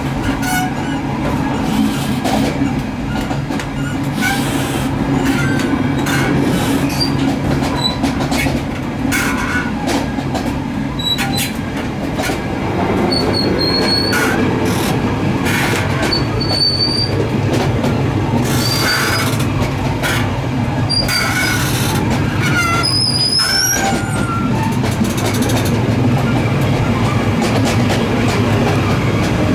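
Running noise of a Zentralbahn metre-gauge passenger train heard in the open gangway between two cars: a steady loud rumble, with frequent short high-pitched squeals and scattered clicks and clatter.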